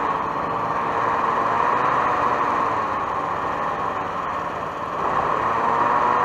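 Hovercraft engine and fan running steadily, easing off slightly about five seconds in, then picking back up.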